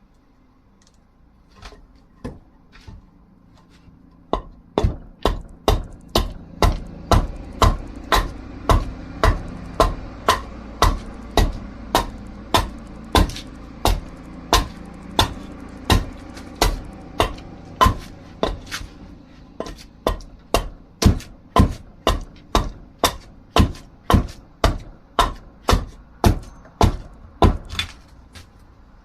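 Steady chopping strikes of a blade into dried wood, about two a second, as the wood is hewn down into an axe handle. A few light taps come first, then the rhythm sets in and runs until it stops near the end.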